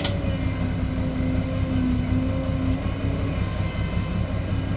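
Kobelco SK200-10 hydraulic excavator's diesel engine running steadily under work load as the machine swings its raised bucket between loads, with a held whine that stops about three seconds in.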